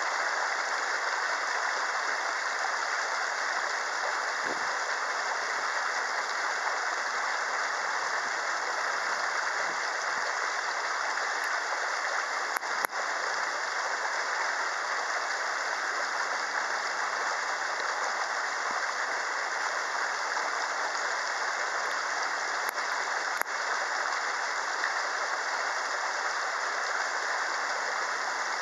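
A steady, even rushing noise with no breaks, with a few faint clicks about halfway through and again a few seconds later.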